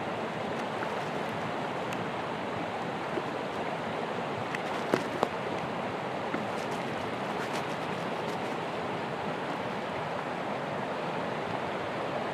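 Steady hiss of even background noise, with a few faint clicks and two sharper clicks about five seconds in.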